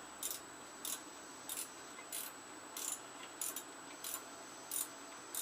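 Ratchet wrench being worked back and forth on a bolt of a small Tecumseh engine, a short raspy ratcheting stroke about every half second, nine times.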